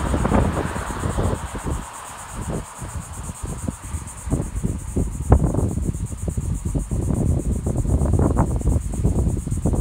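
Gusty wind buffeting the microphone in uneven surges and rumbles, with a steady, rapidly pulsing high-pitched trill in the background.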